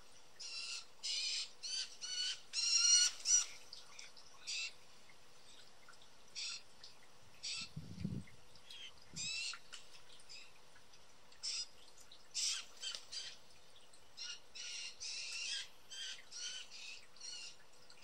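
Several young blue jays calling, short harsh calls in quick runs that come thickest in the first few seconds and then more spread out. The uploader takes these jays for young, hungry birds calling for food.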